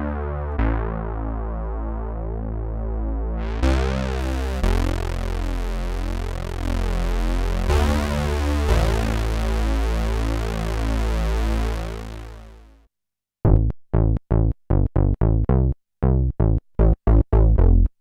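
TAL-U-NO-LX V2 software synthesizer, a Roland Juno-60 emulation, playing a pulse bass preset: held bass notes that change every few seconds and turn much brighter partway through, then fade out about two-thirds of the way in. After a short gap they give way to short staccato bass notes in a quick rhythm.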